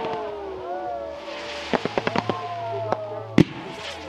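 Low-noise display fireworks going off: scattered sharp pops and crackles from shells bursting, with one loud bang about three and a half seconds in. Long, sliding tones that mostly fall in pitch run between the pops.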